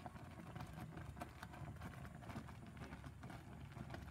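Strawberry jam at a rolling boil in a stainless steel saucepan on a gas hob, its thick bubbles popping in quick, irregular small clicks over a low steady rumble.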